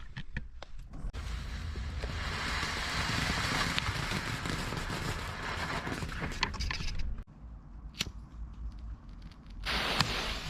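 A lit firework burning with a steady hiss and scattered crackles for about six seconds. It then drops away, with a single sharp crack, before a second short burst of hissing near the end.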